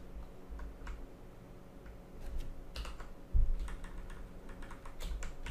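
Computer keyboard being typed on in irregular, scattered keystroke clicks, with a dull low thump about three and a half seconds in.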